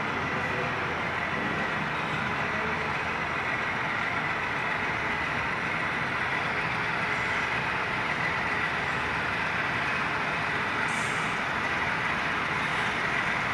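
HO scale model diesel locomotives pulling a train along the layout track: a steady mechanical, engine-like drone with a faint constant whine.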